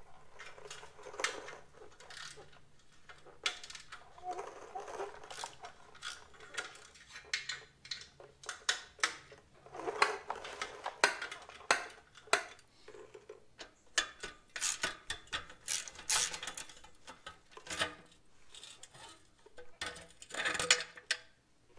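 Hand tools on motorcycle exhaust hardware: a socket wrench with an extension clicking and metal parts clinking irregularly as the exhaust mounting nuts and support bolt are worked loose, with handling rustle in between.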